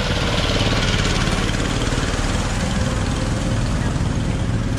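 An engine idling steadily, with a fast, even low pulse.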